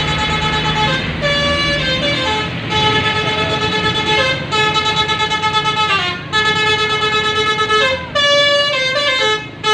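Telolet multi-tone musical air horn playing a tune of held notes that step between a few pitches, with the notes coming shorter and quicker near the end, over the low rumble of the vehicle's engine.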